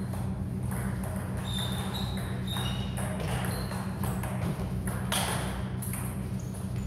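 Table tennis play: the plastic ball clicking off bats and table in a quick, irregular series, with a few short high squeaks between the hits.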